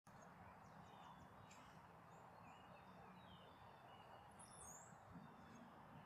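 Faint short bird chirps and peeps, several of them sliding in pitch, with a brighter pair of high calls about halfway through, over a low steady background hum.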